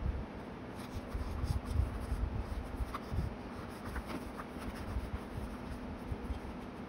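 Paper rustling and rubbing as fingers press a paper label sticker onto a notebook page and smooth it flat, with soft thumps of hands on the notebook and table.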